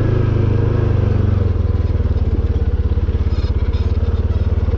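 ATV engine running steadily with a low, pulsing exhaust note; about a second and a half in the pulses turn slower and more distinct as it eases off the throttle.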